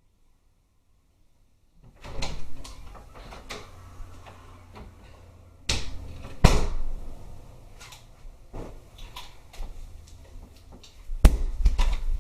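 Knocks, bumps and clatters of a person moving about a small room and handling things, with the loudest thumps about six seconds in and again near the end.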